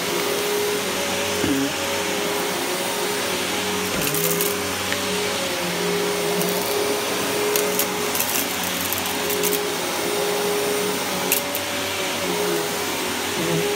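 Riccar bagged upright vacuum cleaner running steadily while pushed over carpet: an even motor whine over rushing suction air, with a few brief light clicks.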